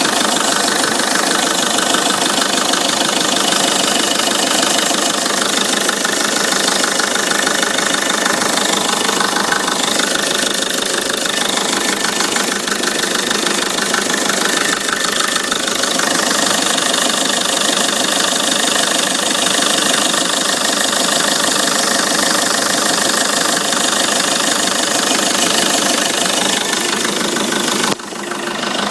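Peugeot 307 2.0 HDi 136 four-cylinder turbodiesel running steadily at idle with a fast, even clatter. This is the abnormal noise the owner is asking about, cause unknown. The sound dips briefly near the end.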